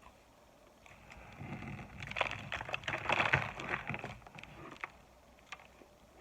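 Close-up crunching and chewing of microwaved cornstarch chunks: a dense run of crackly crunches, loudest in the middle, then a few single clicks.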